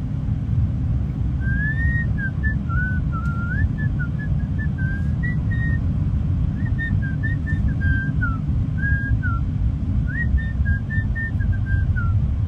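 A person whistling a wandering tune in short phrases, starting about a second and a half in, over the steady low rumble of a car driving, heard inside the cabin.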